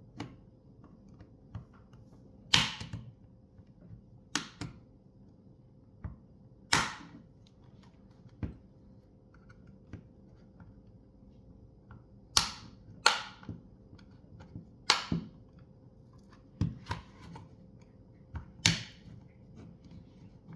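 Plastic retaining clips of a TomTom Go Expert 7-inch sat nav's case snapping loose one after another as a pry tool is worked around the screen edge: about ten sharp snaps at irregular intervals, the normal sound of the housing being opened.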